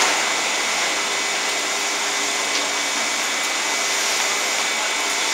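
Steady mechanical whir with a constant high whine from an electric commuter train standing at the platform with its doors open, its onboard equipment running; a brief knock right at the start.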